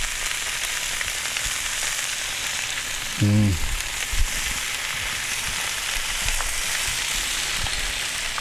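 Root vegetables and leeks sizzling steadily in olive oil in a cast iron skillet while being stirred with a spatula. A man's voice sounds briefly about three seconds in.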